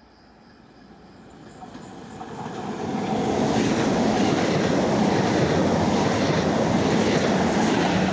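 Double-deck electric regional train approaching and passing through the station at speed: the noise of wheels on rails swells over about three seconds, then stays loud and steady as the carriages rush past close by.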